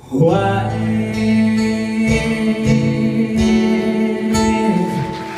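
Acoustic guitar strummed and left ringing, the closing chords of a song, changing chord about two seconds in, again past three seconds and once more near the end.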